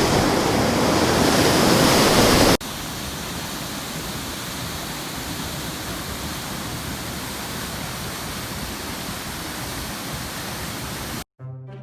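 Steady rushing of water falling at a waterfall. About two and a half seconds in it cuts abruptly to a quieter rush of water, and near the end it drops out and background music with horns begins.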